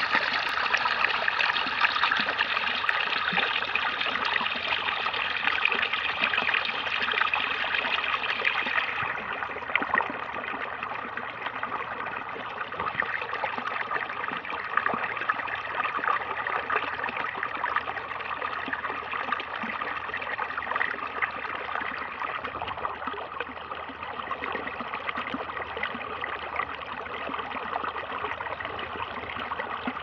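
Irrigation water gushing steadily from a plastic outlet pipe into a flooded field and splashing into the standing water. The sound turns a little duller and quieter about nine seconds in.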